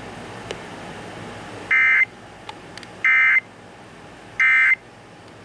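Emergency Alert System SAME end-of-message data bursts: three short, loud, buzzy chirps of about a third of a second each, spaced a second apart, marking the end of the broadcast severe thunderstorm warning. There is faint static hiss between them.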